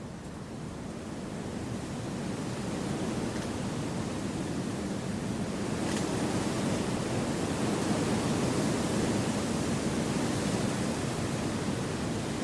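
Wind blowing through forest trees, a steady rushing noise that swells over the first few seconds and then holds.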